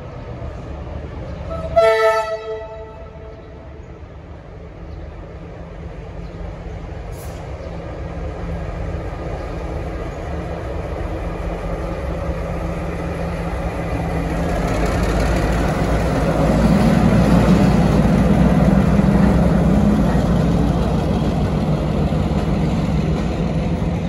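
V/Line Y class diesel shunting locomotive Y161 sounds its three-chime horn once, briefly, about two seconds in. Its diesel engine then grows steadily louder as the locomotive rolls past, loudest about two-thirds of the way through.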